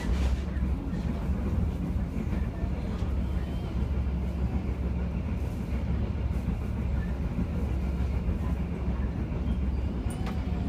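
Steady low rumble and wheel-on-rail noise heard from inside an executive-class passenger coach of a train running at speed.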